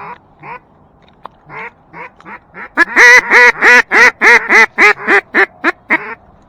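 Duck call blown in a quacking series: a few soft quacks, then a run of about a dozen loud, quick quacks that grow shorter toward the end, in the cadence of a hen-mallard hail call.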